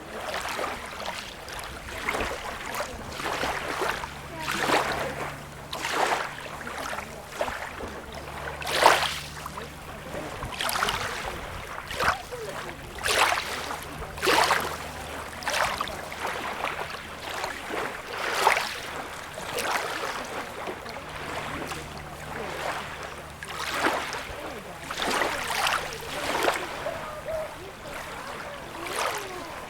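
Small waves lapping and splashing at the water's edge, one short splash every second or two, some louder than others, over a faint low hum that comes and goes.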